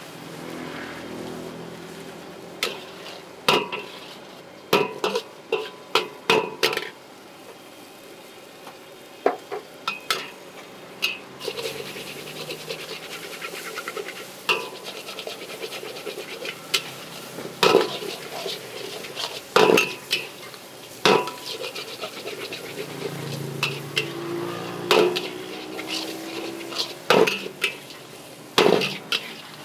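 Metal spatula scraping and clanging against a wok as noodles are stir-fried, over a steady sizzle. The sharp, ringing strikes come in irregular clusters of several at a time, with quieter scraping between.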